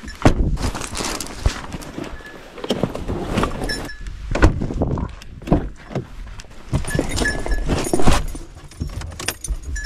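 A goat climbing and moving about in a pickup truck: irregular thumps, hoof knocks and scuffling against the truck's floor and seat.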